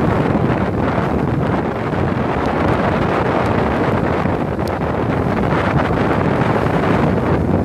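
Strong storm wind buffeting the microphone, a loud, steady rushing noise, with sea waves breaking beneath it.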